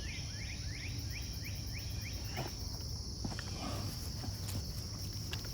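Insects droning steadily in a high, even buzz, with a bird giving a quick run of short rising chirps, about three a second, over the first two seconds. A low rumble sits underneath.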